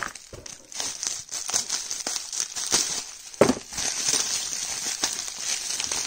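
Plastic bubble wrap crinkling and rustling in irregular crackles as hands unwrap a small boxed cosmetic, with one sharper crackle about three and a half seconds in.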